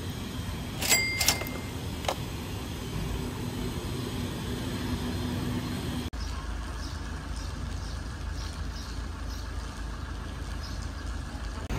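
Street ambience with a steady hum of vehicle engines and traffic. About a second in come a couple of sharp clinks with a brief ringing tone, and about six seconds in the background changes to a deeper low rumble.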